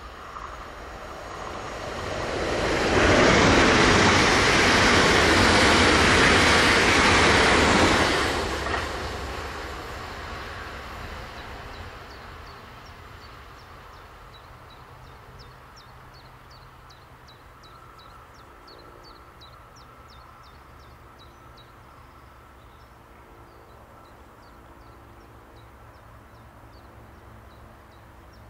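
A Siemens Desiro ML electric multiple unit (class 460) passing at speed, with the rush of its wheels on the rails. The noise builds over about two seconds, stays loud for about five seconds as the train goes by, then fades away over several seconds as it recedes.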